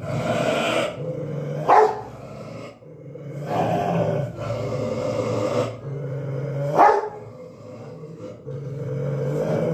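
Rottweiler growling angrily in long, low rumbles, with two sharp loud barks, one about two seconds in and one about seven seconds in.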